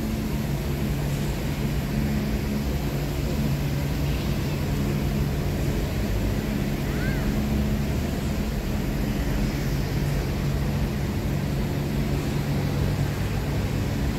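Steady low droning hum of outdoor city ambience, like traffic or an idling engine, with a brief high chirp about seven seconds in.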